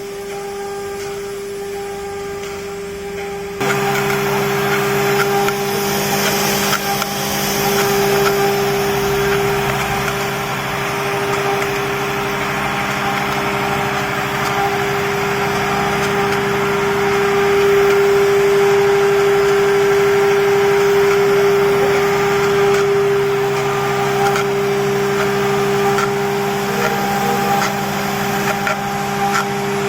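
CNC router with a rotary axis running: the spindle gives a steady whine over machine noise, and the sound steps up sharply about three and a half seconds in, with lower hum added, then runs on steadily.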